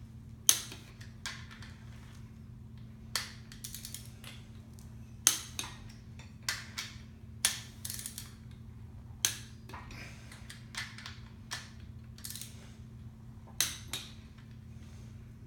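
Pittsburgh Pro click-type torque wrench and socket working the connecting-rod bolts of a Chevrolet 350 bottom end: irregular sharp metal clicks and clinks, about one a second, the loudest about half a second in. The bolts are being brought up to torque a little at a time, back and forth between them.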